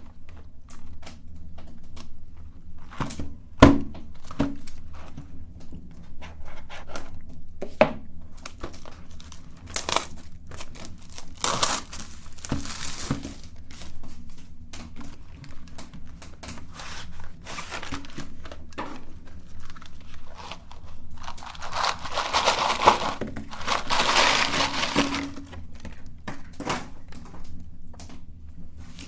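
Plastic wrappers of jelly candies crinkling and tearing as they are opened and handled, with scattered sharp knocks and taps. Longer crinkling stretches come about halfway through and again near the end, over a low steady hum.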